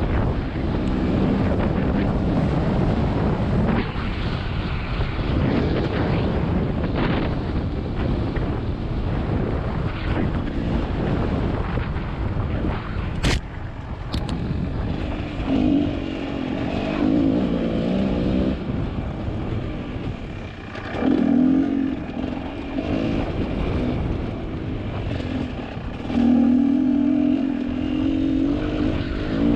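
GasGas two-stroke dirt bike engine under way on a trail, revving up and easing off with the throttle, with wind on the microphone. Two sharp clicks come about halfway through, and the engine revs up hard several times in the second half.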